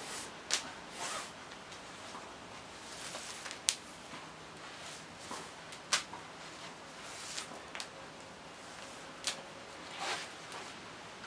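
Rope being pulled through a fabric round sling and handled while a knot is tied: intermittent swishes of rope sliding against rope and webbing, with a few sharp taps.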